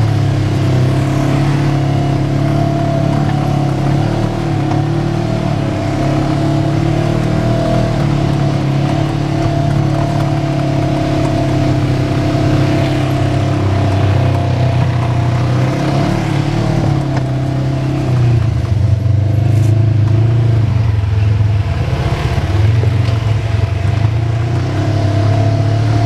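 Side-by-side UTV's engine running steadily while driving, heard from on board, with a steady low drone and a fainter higher whine over it. The engine note dips and picks up a little about two-thirds of the way through.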